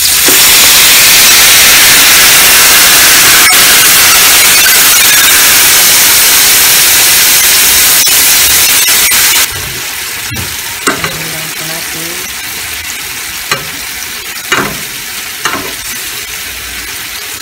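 Teriyaki sauce of soy sauce, rice wine and sugar poured into a hot pan around a seared salmon steak, sizzling loudly and steadily. About nine seconds in the sizzle drops suddenly to a quieter bubbling simmer, with a few sharp clicks of a spoon against the pan as the sauce is spooned over the fish.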